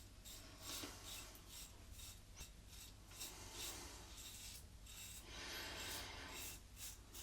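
Faint rasping of a double-edge safety razor with a Rex blade scraping through lathered stubble in repeated short strokes.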